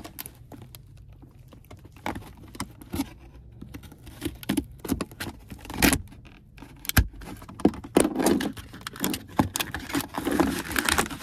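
A knife package being cut and pried open with a Swiss Army knife: irregular crackling, clicking and scraping of the packaging, sparse at first and busiest over the last few seconds.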